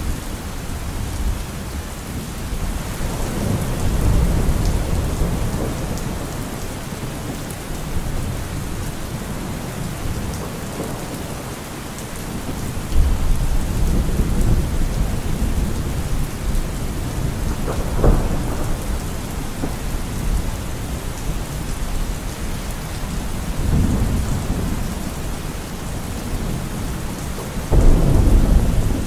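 Steady rain with thunder rolling several times, including one sharp crack about two-thirds of the way in and the loudest rumble starting near the end.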